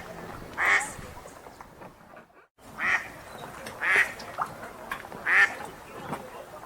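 Wild ducks quacking: single loud quacks about every second or so, four strong ones and a couple of softer ones, over a faint steady background hiss. The sound drops out to silence for a moment a little past two seconds in.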